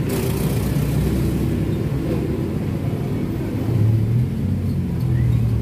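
A motor vehicle engine running with a steady low hum, swelling briefly twice near the end.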